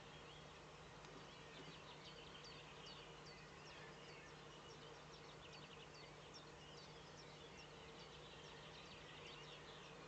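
Faint, distant songbirds chirping in quick, high notes, with a low steady hum underneath.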